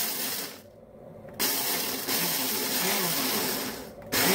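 Ninja blender grinding whole coffee beans in its single-serve cup, pulsed on and off: the motor stops about half a second in, runs again for a couple of seconds from about a second and a half, then starts again near the end. The beans are ground coarse for French press coffee.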